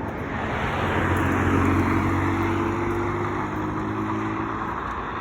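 A motor vehicle passing along the road, its engine hum and tyre noise swelling to a peak about two seconds in and then fading.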